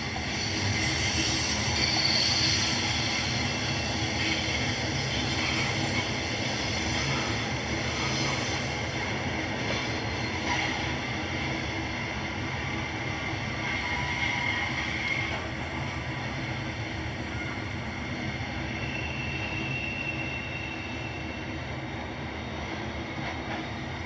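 Dubbed-in recording of a full-size train running past: a steady rumble of wheels on rails, with a few brief high squeals.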